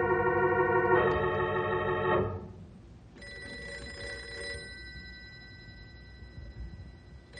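A short organ music bridge that stops about two seconds in. About a second later a telephone bell starts ringing, a steady high metallic ring that is strongest at first and rings again near the end.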